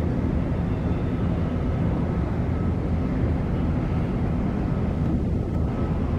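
Steady low rumble of jet airliner noise, heard from inside the cabin, with a faint steady hum above it.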